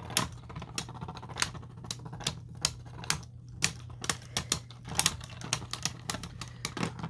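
Two Beyblade spinning tops clacking against each other in a stadium: sharp, irregular clicks, a few per second. The clicks stop near the end, when the round ends in a tie.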